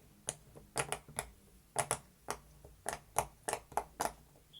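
Silicone bubbles of an octopus-shaped pop-it fidget toy being pressed through one after another, giving about a dozen sharp, irregular pops.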